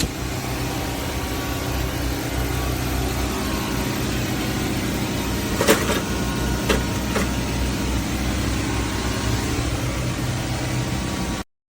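A car engine running steadily, with three short clicks or knocks about halfway through.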